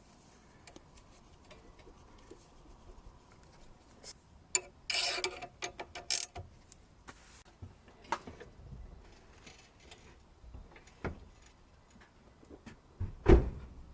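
Scattered clicks and knocks of hand tools and metal parts during work on a car's front suspension, with a short rattling burst about five seconds in and a loud knock near the end.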